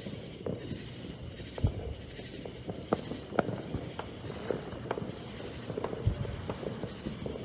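Distant consumer fireworks going off: a string of sharp pops and deeper booms at irregular intervals, some louder than the rest. A high, rhythmic pulsing repeats in the background about every three-quarters of a second.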